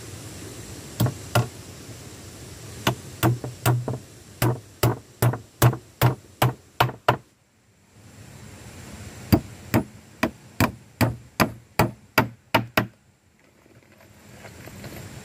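Hammer driving nails into old wooden planks: two light taps, then two runs of steady blows at about two to three a second, with a short pause between the runs.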